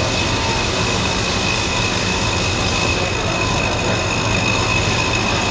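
Rottler F69A CNC machine boring a valve seat pocket in a Waukesha cylinder head by circular interpolation: steady machining noise with a high, even whine from the spindle and cutter.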